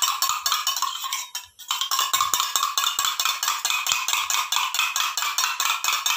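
A spoon beating a raw egg in a stainless-steel tumbler, clinking rapidly against the metal at about seven or eight strokes a second, with a short pause about one and a half seconds in.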